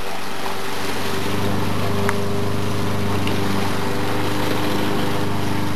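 A steady mechanical hum with an even hiss, holding the same level throughout.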